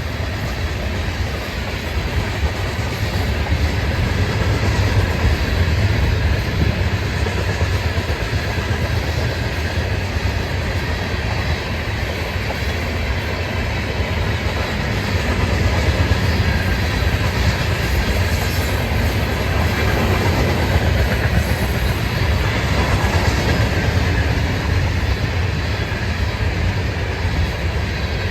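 Florida East Coast Railway freight train rolling past, its cars making a steady rumble of wheels on rail.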